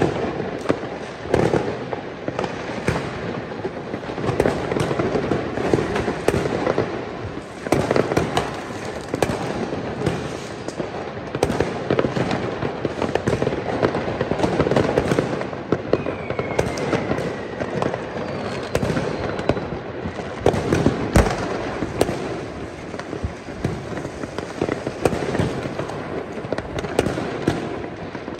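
Many fireworks and firecrackers going off at once: a continuous din of crackling with many sharp bangs. A couple of whistles fall in pitch about halfway through.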